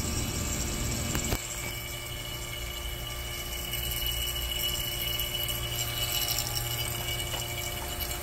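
Electric refrigeration vacuum pump running steadily with a motor hum and a hiss, pulling a vacuum on a small R290 refrigeration system. A click about a second in, after which the pump runs a little quieter.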